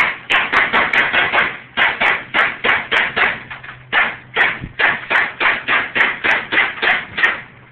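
Airsoft pistol fired as fast as the trigger can be pulled, about four sharp pops a second with a brief pause about four seconds in, roughly thirty shots in all.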